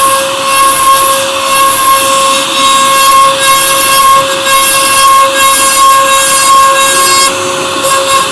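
CNC router spindle cutting an MDF sheet: a steady high-pitched whine over the hiss of the bit chewing through the board.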